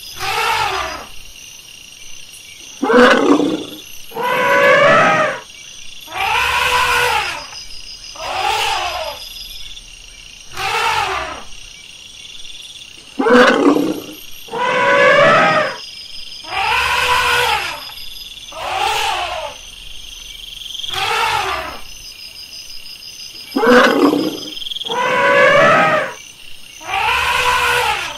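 Elephant trumpeting: a run of loud, brassy calls, each about a second long with a rising-then-falling pitch, coming roughly one every two seconds.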